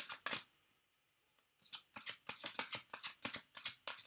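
A tarot deck being shuffled by hand: a quick run of card slaps and flicks, about six a second, after a short burst and a pause of about a second.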